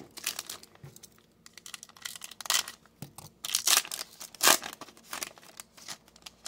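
Foil trading-card pack wrapper crinkling as it is torn open, with irregular crackles. The loudest crackles come in the middle of the tearing.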